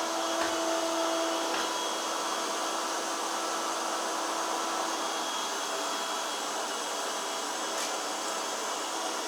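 Laresar robot vacuum running steadily as it cleans, a continuous motor and fan hiss with a faint steady hum.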